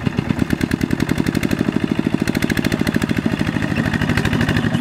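Single-cylinder diesel engine of a two-wheel walking tractor (power tiller) running hard with a rapid, even chugging, under load as it hauls a trailer of rice sacks up a muddy slope. The beat quickens slightly about two seconds in.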